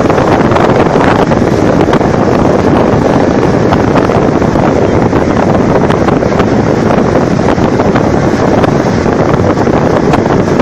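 Loud, steady wind noise on the microphone of a speeding motorboat, over the rush of its churning wake.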